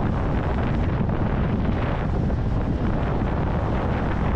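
Strong wind buffeting the microphone: a steady, loud, low rumbling roar.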